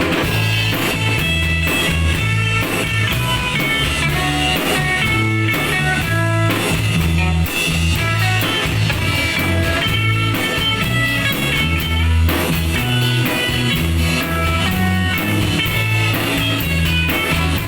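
Rock band playing an instrumental break: an electric lead guitar melody over bass guitar and drum kit, with no singing.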